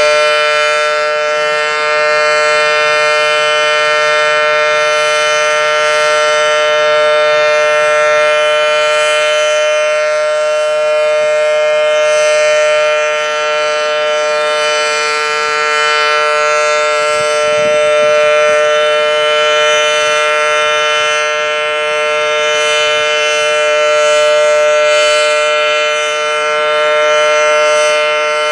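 Federal Signal Model 7T outdoor warning siren sounding a loud, steady tone during a siren test, two pitches held together without rising or falling.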